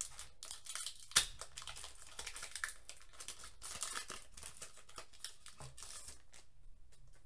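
Foil wrapper of a Pokémon trading-card booster pack crinkling and tearing as it is opened by hand, with one sharp crack about a second in. The crackling stops about six and a half seconds in.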